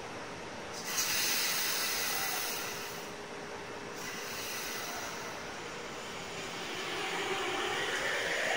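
Sotetsu electric commuter train at a station platform: a sudden hiss of air from the brake system about a second in, a shorter second hiss, then the traction motors starting to whine, rising in pitch as the train begins to pull away.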